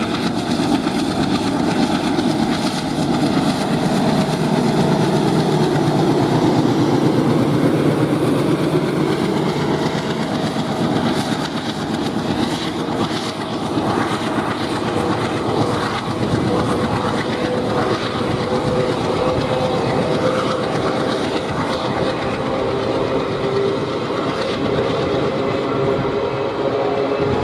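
A train running steadily along the track, its wheels clattering on the rails. A thin steady whine joins in over the second half.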